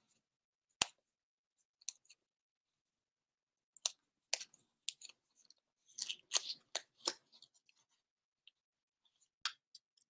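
Scattered short clicks and scratchy ticks of fingernails picking at the tape on a small taped-shut paperboard box, several coming close together in the middle, with silence between.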